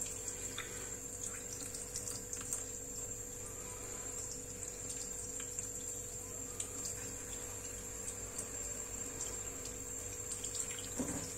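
Quiet steady hum with a constant tone and a faint hiss, broken by a few faint clicks.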